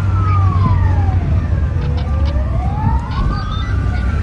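Fire engine's wail siren sweeping slowly down in pitch and back up again, one full fall and rise, over a steady low rumble.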